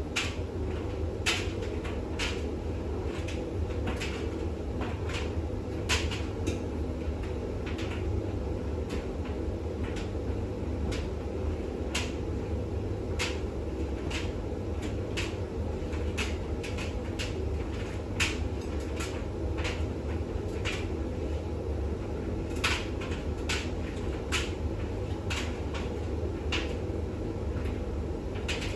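Bosch WAX32GH1 washing machine running steadily during its intermediate spin, a constant low hum with irregular sharp clicks and knocks from the drum.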